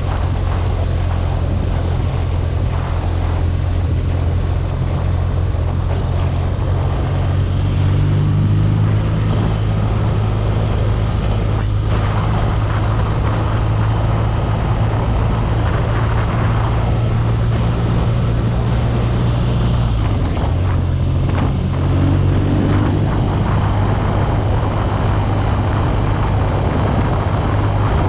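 BMW R nineT Urban G/S's 1170 cc boxer-twin engine running while the bike is ridden at a steady pace, over a steady rushing noise. The engine note rises a little about eight seconds in and drops back about twenty seconds in, with the throttle changing.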